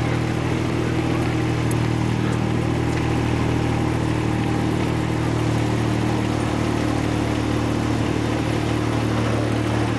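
Engine of a ride-on miniature railway locomotive running at a steady pace while the train travels along the track.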